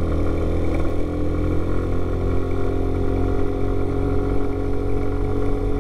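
Lance PCH 125 scooter engine running steadily at part throttle on the move, its note sagging slightly over a few seconds, over a low wind rumble.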